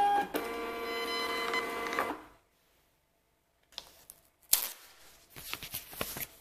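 Zebra desktop thermal label printer feeding out a shipping label: a steady motor whir with several held tones for about two seconds, then it stops. A couple of seconds later come paper crackles and a sharp rip as the printed label is torn off at the printer and handled.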